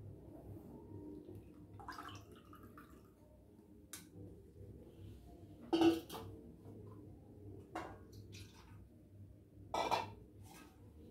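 Several separate clinks and knocks of a stainless steel pot and a small mesh strainer against a china cup while tea is strained, the loudest about six seconds in with a short metallic ring and another near ten seconds in, with a little liquid dripping.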